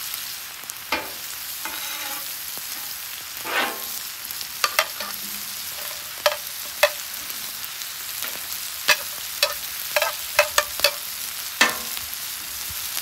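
Butter and steaks sizzling steadily on a hot flat-top griddle, with a run of sharp clicks and scrapes in the second half as a metal spatula pushes broccoli and onion off a plate onto the steel.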